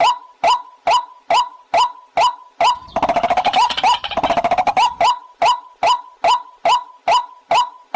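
White-breasted waterhen calling: a loud, short note repeated evenly about twice a second, broken between about three and five seconds in by a fast run of chattering notes.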